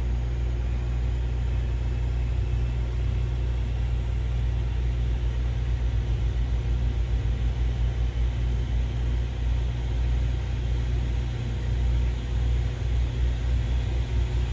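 Allison T56 turboprop being turned over by its starter during a start attempt: a steady low rumble that begins to pulse unevenly about six seconds in. The starter is faulty and is struggling to bring the engine up to speed.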